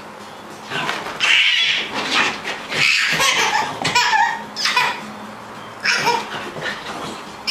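An excited dog giving high-pitched yips and whines in about seven short bursts, with a baby laughing among them.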